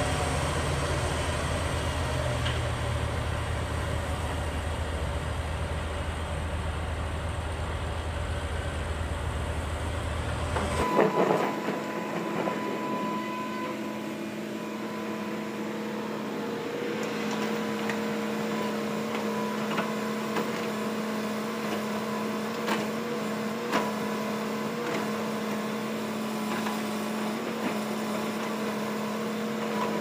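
Crawler bulldozer's diesel engine running with a deep steady rumble. About eleven seconds in, the sound changes to a Hitachi hydraulic excavator's engine and hydraulics running with a steady hum and whine, with a few sharp knocks of rock and bucket near the end.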